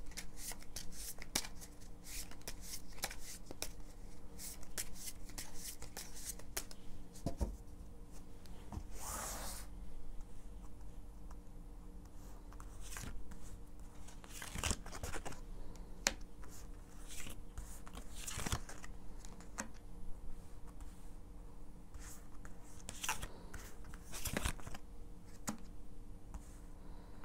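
Tarot cards being handled: the deck is shuffled, spread out in a fan over a cloth and cards are drawn, giving a run of light card flicks and snaps with a longer sliding rush about nine seconds in.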